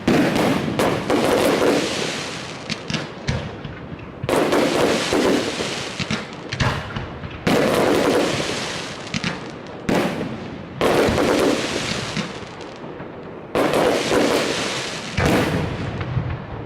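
Aerial fireworks shells bursting, five big bangs about three seconds apart. Each bang trails off in a crackling rumble.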